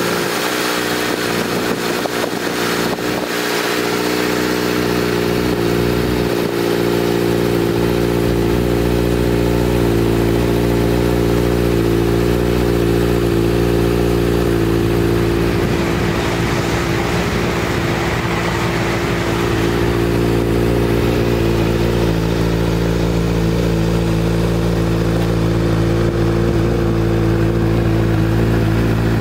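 Inline four-cylinder engine of a 2011 Honda CBR600F idling steadily through an aftermarket Leo Vince carbon silencer.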